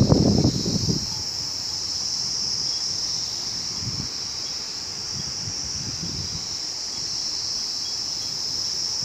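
Steady high-pitched drone of an insect chorus, slowly swelling and easing. Low rumbling wind on the microphone in the first second, with fainter gusts later.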